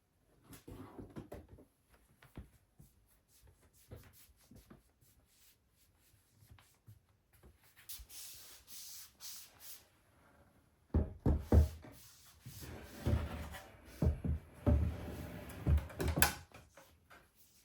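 Household handling sounds in a small room: light clicks, rubbing and rustling, with a soft hiss about eight seconds in. From about eleven seconds in comes a run of heavier knocks and thumps, like a cupboard or door being opened and closed and objects being set down.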